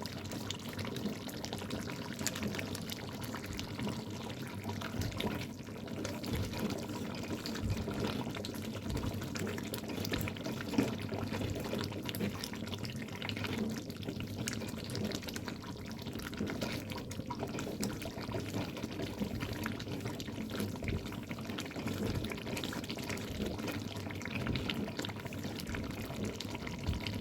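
Milk-based chicken curry gravy simmering in a pan on low heat: a steady liquid bubbling hiss, with a few light knocks scattered through it.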